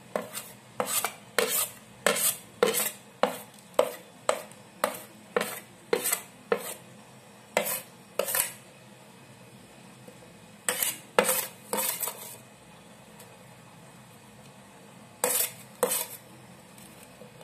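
A steel spoon scraping chili powder off a ceramic plate in short strokes, metal on ceramic. The strokes come about two a second at first, then in a few short clusters with pauses between them.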